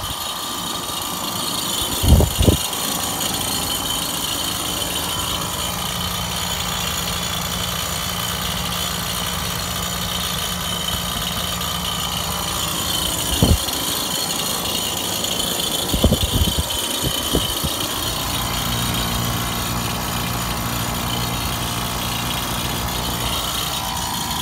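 Air-conditioning unit running with a steady mechanical hum that doesn't sound too good, on a system starting to ice up. A few brief knocks come about two, thirteen and sixteen seconds in.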